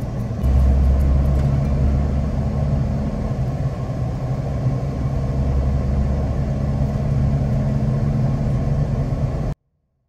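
Car engine and road noise heard from inside the cabin while driving: a steady low hum that gets louder about half a second in and cuts off suddenly near the end.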